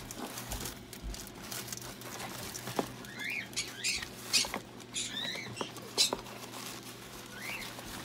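Paper napkins rustling and crinkling as they are spread around a plastic container, with scattered light clicks of plastic rings being handled and a few short high squeaks near the middle.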